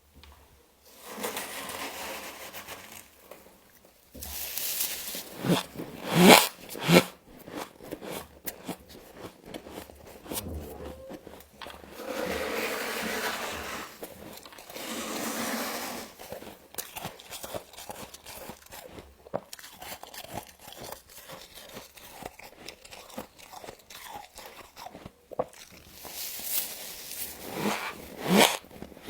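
Close-up crunching and chewing of frost, as bites of packed ice frost are crushed between the teeth. The loudest bites come about five to seven seconds in and again near the end, with longer stretches of dense crunching in between.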